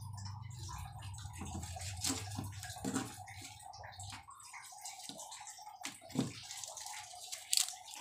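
Water in a small betta tank splashing and sloshing in a few short bursts as a hand pushes a ketapang (Indian almond) leaf into it.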